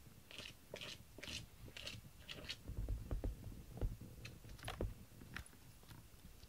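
A cat scraping in a litter box, about six quick scratchy strokes roughly twice a second, followed by low thumps and a few sharp clicks.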